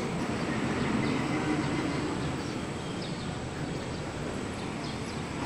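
Road traffic heard from a distance, most likely a bus passing on the road below: a steady engine hum and tyre noise that swells about a second in and then slowly fades.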